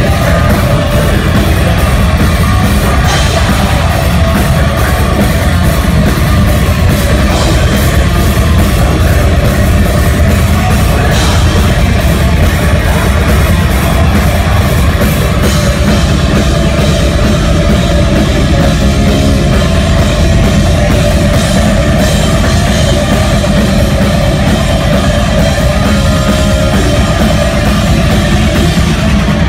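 Live hardcore band playing loud and without a break: distorted electric guitar, bass guitar and a full drum kit.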